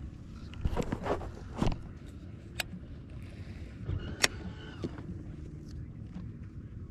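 A few knocks and two sharp clicks on a fishing boat, over a steady low rumble.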